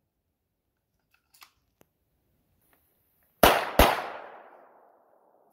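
Two pistol shots in quick succession, about a third of a second apart, each a sharp crack, with the echo dying away over about a second.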